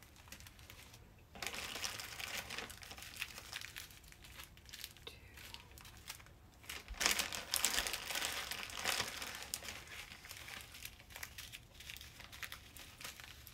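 Small plastic zip-lock bags of diamond-painting drills crinkling and rustling as they are handled, in uneven bursts, loudest about halfway through.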